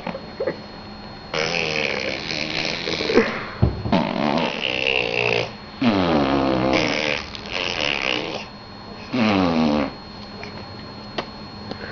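A series of drawn-out, non-speech vocal noises made for fun, four or five in a row with short gaps, several sliding downward in pitch.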